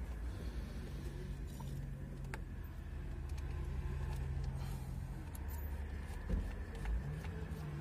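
Steady low hum of a Daewoo Nexia heard from inside the cabin, with a few light clicks from handling at the steering wheel. The hum drops out about five seconds in and comes back slightly higher near the end.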